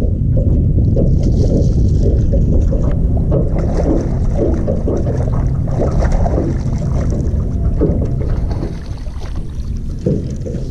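Wind buffeting the microphone, with small waves lapping and slapping against the hull of a small aluminum fishing boat.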